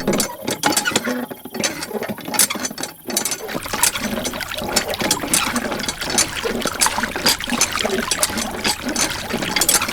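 Rapid, irregular clicking and rattling of small mechanical parts.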